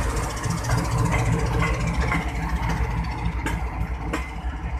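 GEU-40 diesel-electric locomotive engine running as the locomotive pulls away, its low rumble slowly fading, with a few sharp clicks from the train rolling over the track.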